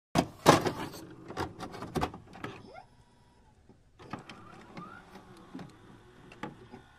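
Electronic glitch sound effects: sharp digital clicks and crackles with short whirring glides, loudest in the first two seconds. After a brief gap the clicks return fainter, with a short rising glide about five seconds in.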